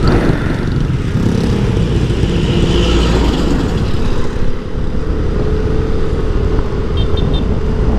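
Motor scooter riding along a road, heard from the rider's seat: steady engine and tyre noise with wind rushing over the microphone, among other passing motorcycles.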